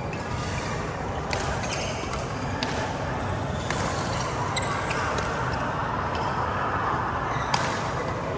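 Badminton rally: shuttlecock struck back and forth by rackets, with sharp hits roughly every second, the loudest near the end. The hits sit over a steady hall background noise.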